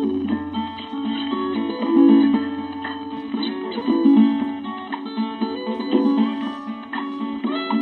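Background music played on acoustic guitar. A low bass note sits under it until about five seconds in, then drops away.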